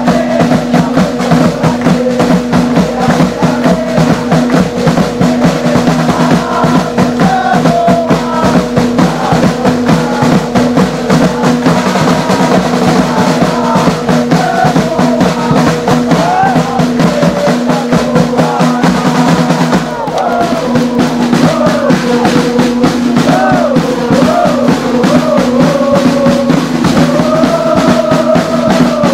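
Ultras' snare drums and bass drum beaten in a fast, steady rhythm, with a crowd of supporters chanting and singing along over the drums.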